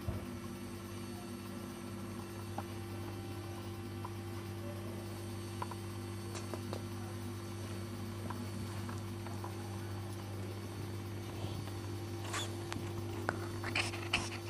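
A steady low electrical hum, with faint scattered clicks and a few short, sharp high-pitched sounds near the end.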